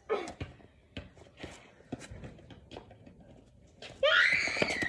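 A child's loud, high-pitched squeal beginning about four seconds in, climbing and then falling in pitch, after a few scattered light knocks.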